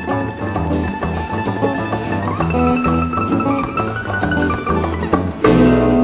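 Instrumental background music carried by plucked strings over a bass line. It grows suddenly louder about five and a half seconds in, as a new phrase begins.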